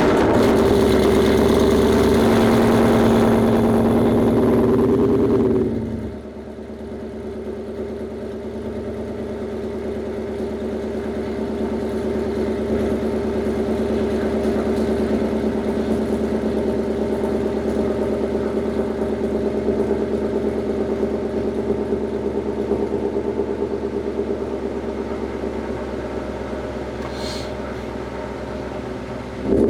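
A Ford Mustang Bullitt's 5.0 V8 running on a chassis dyno after an E85 tune, held at steady revs. About six seconds in it drops sharply to a quieter steady note, which swells slowly and eases off again.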